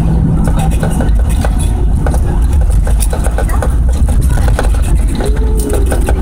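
Steady low rumble of a jet airliner's engines and wheels heard inside the cabin as it rolls along the runway after touchdown, with frequent light clicks.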